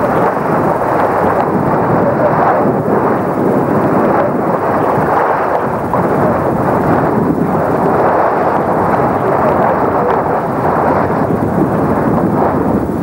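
Loud, steady rushing noise with no clear pitch: wind buffeting the microphone.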